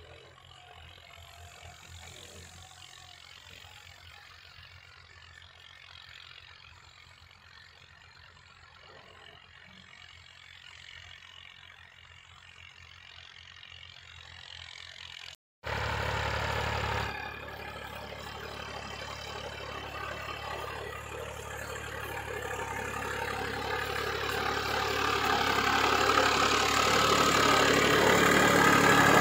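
Tractor diesel engines working in the field, faint and steady. About halfway in, a Massey Ferguson 260 Turbo's three-cylinder diesel pulling a potato planter runs much closer, growing louder toward the end.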